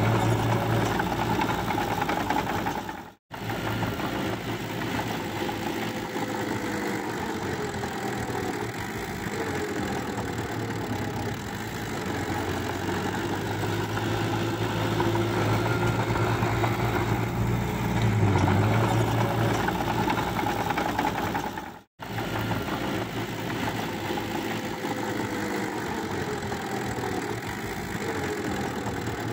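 Small DX40M crawler bulldozer's diesel engine running steadily as it pushes mud, its pitch sagging and recovering slightly now and then. The sound cuts out abruptly twice, about 3 seconds in and near 22 seconds.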